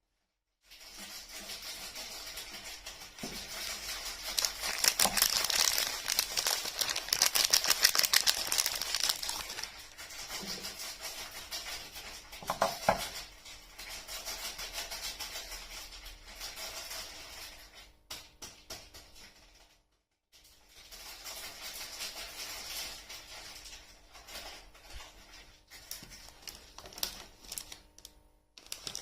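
Soap-bar wrappers crinkling and tearing as they are unwrapped by hand: a dense crackling rustle, loudest a few seconds in, that breaks off briefly about two-thirds of the way through.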